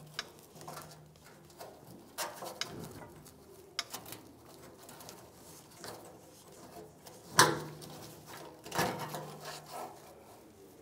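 Rubbing, creaking and scattered clicks of a plastic fuel-tank vent valve being worked out of its rubber seal and old, hardened vent hose by a gloved hand. A sharper knock comes about seven and a half seconds in, and another near nine seconds.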